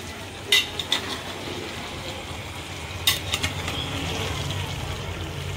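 Metal spoon stirring chicken pieces in a metal cooking pot, with a few sharp clinks of the spoon against the pot, over a steady low hum.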